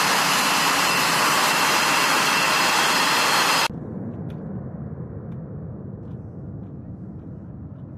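Military fighter jet's turbofan engine running on the ground close by: a loud, steady rushing hiss with a high turbine whine. It cuts off abruptly about halfway through, leaving only a faint low rumble.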